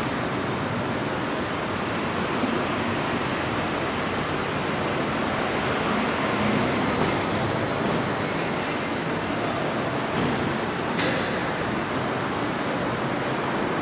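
Steady traffic and vehicle noise from a station taxi rank, with a brief knock near the end.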